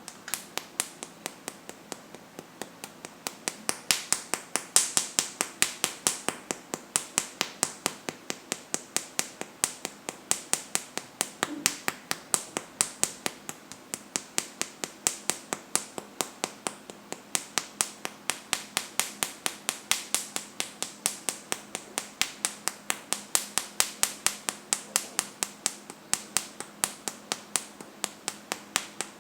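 Rapid, steady hand patting on the upper chest, about four sharp slaps a second without a break: therapeutic tapping of the acupoints below the collarbone to relieve a cough.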